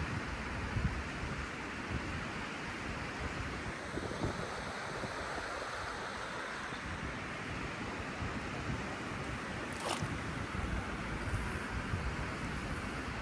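Wind buffeting the microphone over the steady rush of choppy river water, with one sharp click late on.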